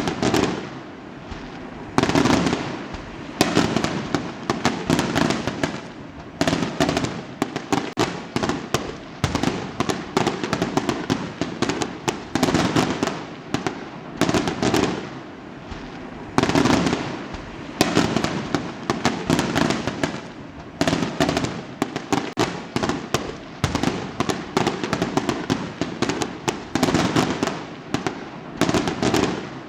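Fireworks going off: dense volleys of crackling pops and bangs, one cluster after another every second or two, with short gaps between them.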